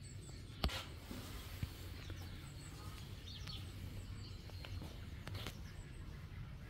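Faint outdoor background: a low steady rumble with a few short bird chirps, and one sharp click about half a second in.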